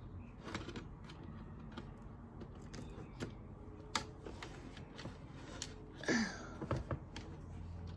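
Scattered small clicks and taps of plastic pieces and tweezers being handled on an Operation board game, with one sharper click about four seconds in and a brief voice sound about six seconds in.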